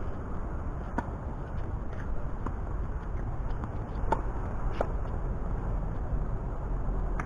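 A few sharp pocks of a tennis ball struck by racquets and bouncing on an outdoor court, spaced about a second apart, over a steady low rumble.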